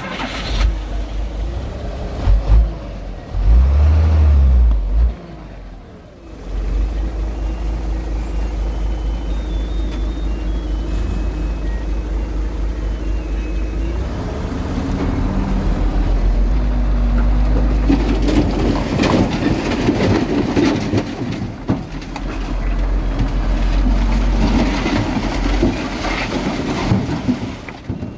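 Heavy earthmoving machine's diesel engine running under load. A loud surge comes about four seconds in and a brief drop-off just before six seconds. After that it runs steadily, growing louder and rougher with clanking through the second half.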